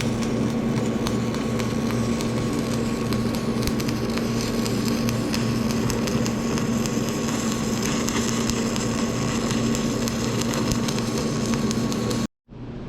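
Stick-welding arc crackling and hissing steadily as nickel 55 rod is laid onto a cast iron differential carrier, over a steady low hum. The sound cuts off abruptly near the end.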